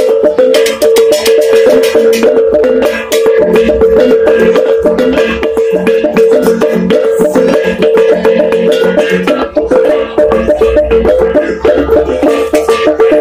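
Music of fast, dense percussion strikes over a steady ringing tone, continuing without a break.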